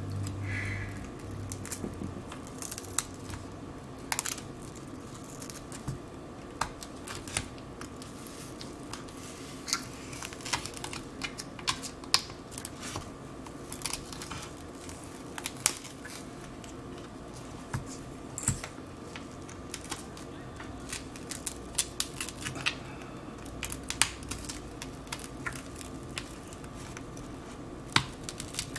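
Irregular sharp clicks and crackles of a shattered iPad 6 glass digitizer being pried off its adhesive with a plastic opening pick, the cracked glass snapping and scraping as it lifts.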